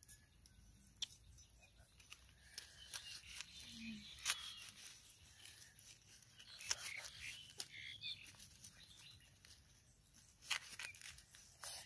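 Meat cleaver cutting boiled pork on a bed of leaves: scattered faint taps and clicks of the blade, with leaves rustling.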